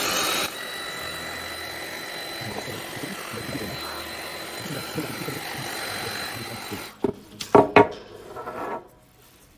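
Heat gun running with a steady fan hiss and a high whine while shrinking adhesive-lined heat-shrink tubing onto a metal shackle. It cuts off about seven seconds in, and a few loud knocks follow.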